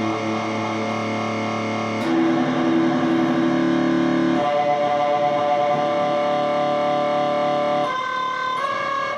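Electric guitar (ESP M-300FM) played through an Electro-Harmonix Canyon delay pedal in sample-and-hold mode, open strings struck and left ringing with a warbling, processed tone. New notes or chords come in about two seconds in, again after four and a half, and twice near the end.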